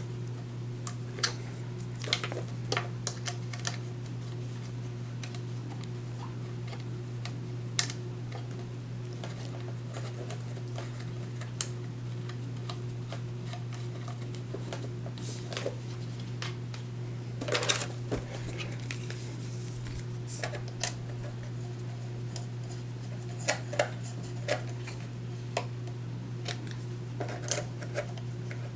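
Scattered light clicks and taps of antennas being handled and screwed onto a router's threaded antenna connectors, over a steady low hum.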